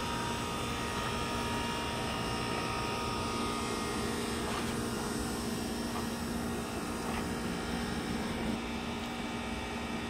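Outdoor air-conditioning condenser unit running: a steady hum with fan noise, level throughout.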